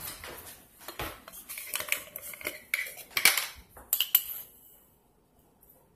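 Clicks and clatters of a spoon and containers being handled on a kitchen counter as a tablespoon of brown sugar is measured out. The handling stops about four seconds in.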